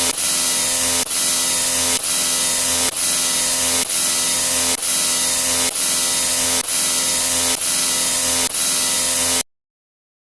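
A short noisy sound effect, a hiss over a steady hum, played over and over back to back, a little under once a second. It cuts off abruptly near the end and is followed by silence.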